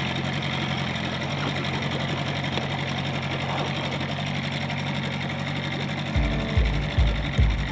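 Small outboard dinghy motor running steadily at low throttle. About six seconds in, music with a regular bass beat comes in.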